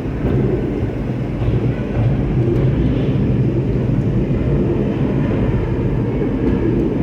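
Steady low rumble and rattle of the Gateway Arch tram capsule travelling down its track inside the arch's leg.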